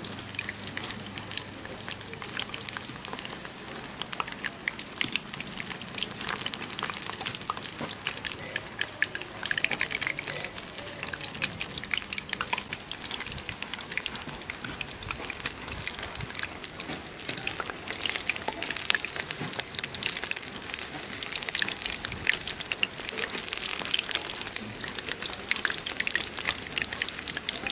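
Batter-coated egg pakoras deep-frying in hot oil in a steel kadhai: a steady sizzle with dense crackling.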